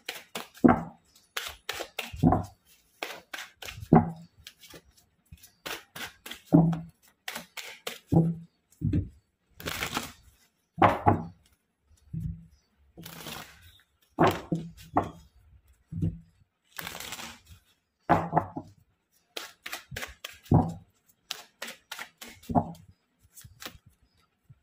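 A tarot card deck being shuffled by hand: a run of dry slaps and knocks as the cards are patted and tapped together, one or two a second, with a few longer rustling riffles of the cards.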